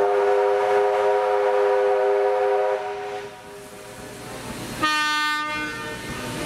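Steam whistle of locomotive 3801 blowing one long blast of about three seconds, then a shorter, lower blast about five seconds in.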